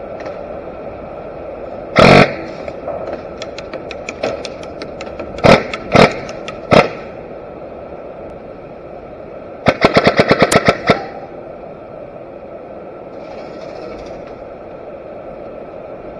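Airsoft guns firing: a short burst about two seconds in, a few faint clicks, then three single shots. Near the middle comes a rapid burst of about ten shots in just over a second.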